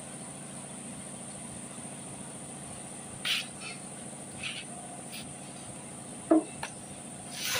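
Timing chain and plastic chain guide being handled and fitted on a Toyota 2TR engine: a few light, separate clinks and rattles of the chain, the loudest about six seconds in, over a steady high-pitched hiss.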